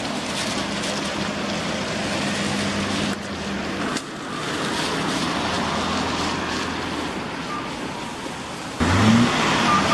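Street traffic noise: motor vehicles running and passing, with abrupt changes where shots are cut, and a louder stretch near the end with an engine's pitch rising.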